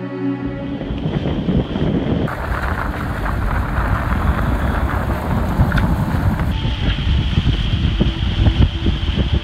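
Wind buffeting a phone microphone aboard a Farrier F9R trimaran under way, with the rush of water past the hull. The noise shifts abruptly about two seconds in and again past six seconds.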